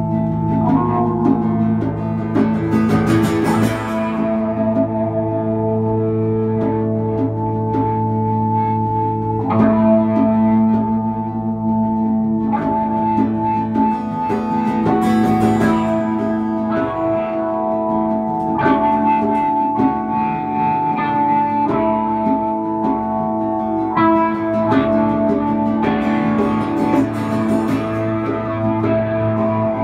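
Electric guitar and acoustic guitar playing an instrumental passage live. The notes are held and ringing, with new chords struck every couple of seconds.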